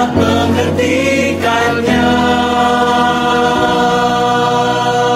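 A mixed choir of men and women singing slow, sustained chords. The chord changes a couple of times, then a long chord is held from about three and a half seconds in.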